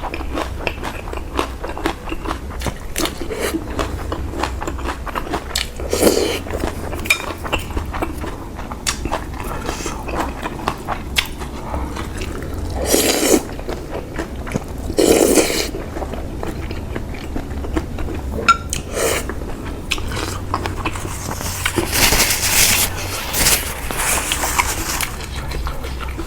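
Close-miked eating of pork noodle soup: steady chewing and biting with many small mouth clicks, and a few louder noisy bursts about a second long over a low steady hum.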